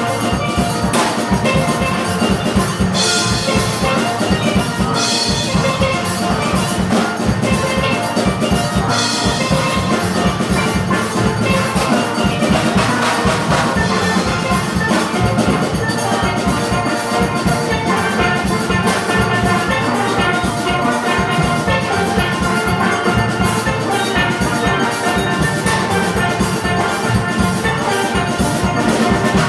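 Steel orchestra playing: many steelpans ring out a melody and chords over a steady drum beat.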